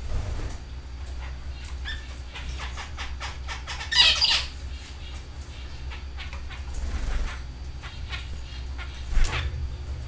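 Canaries calling in short chirps, with a loud, sharp call about four seconds in and another near the end, over a steady low hum.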